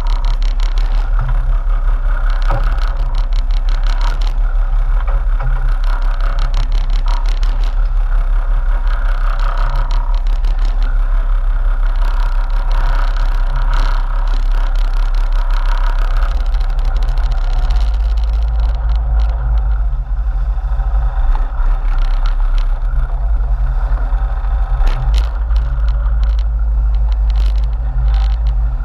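Sportfishing boat's engines running steadily, with the low drone growing deeper and stronger about two-thirds of the way through, and scattered light clicks and rattles over it.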